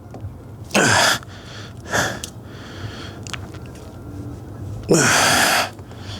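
A man breathing out hard with effort, two loud strained exhales about a second in and again near five seconds, with a shorter one near two seconds. Faint light clicks come in between while he works a wiring-harness connector loose.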